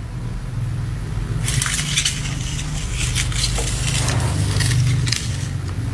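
Crackling, crunching noises, thickest from about a second and a half in until about five seconds, over a steady low rumble.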